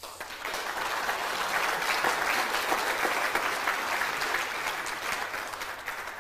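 Audience applauding, with many hands clapping. It starts suddenly and dies away near the end.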